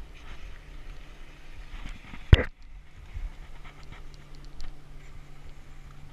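Fishing rod and baitcasting reel handling noise as a lure is retrieved: a swish at the start, one sharp loud knock about two seconds in, then light reel ticks, over a low steady hum.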